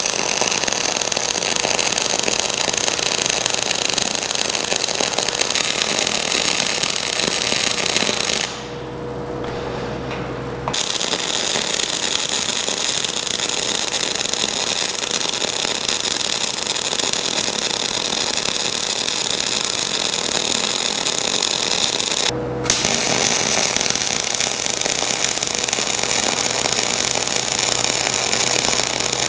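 MIG welding arc from a Miller CP-300 wire-feed welder, a steady crackling hiss as weld passes are laid to build up worn steel. The arc stops for about two seconds roughly a third of the way in, leaving the welder's low hum, and breaks again briefly about three quarters of the way through.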